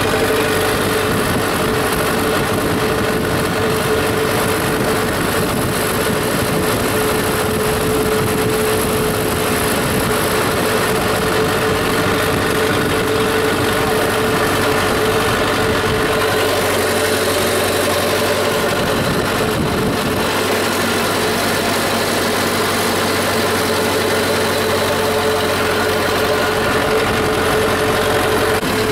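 Zetor 7745 tractor's four-cylinder diesel engine running steadily at constant revs, heard from the driver's seat, with a strong steady drone.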